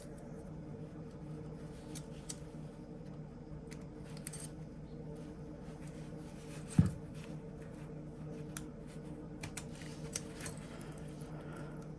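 Small metal clicks and taps of pocketknife parts being handled at a workbench, with one louder knock about seven seconds in, over a steady low hum.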